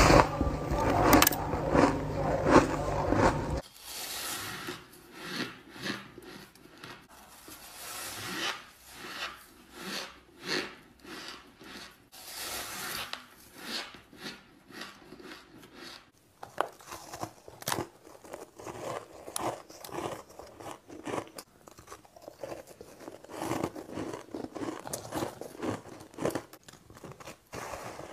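Close crunching of soft, snow-like white ice being bitten and chewed, a dense run of crisp crackles. It is loudest, with a deep rumble under it, for the first few seconds, then drops suddenly and changes character again about halfway through as one eater gives way to another.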